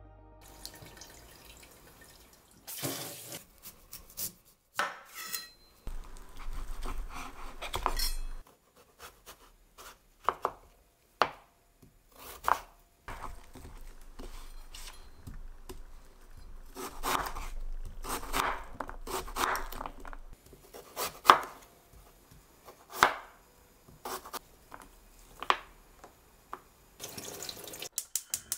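Kitchen knife cutting a peeled Korean radish (mu) on a wooden cutting board, one slow stroke at a time, each cut ending in a sharp knock of the blade on the board every second or two, after a few seconds of rustling kitchen handling. Near the end comes a fast run of clicks from a gas stove's igniter lighting the burner.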